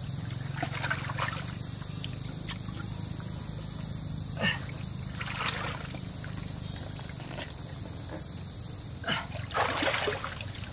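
Muddy water splashing and sloshing as hands grope for fish among roots in a shallow pool, in several short bursts, the loudest and longest near the end. A steady low drone runs underneath.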